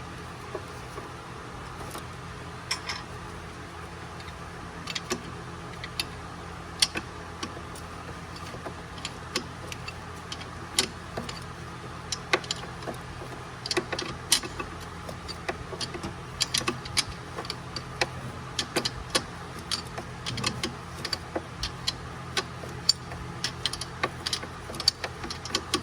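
Scattered sharp metallic clicks and clinks of hand tools and small parts being worked on an engine, coming more often in the second half, over a steady low hum.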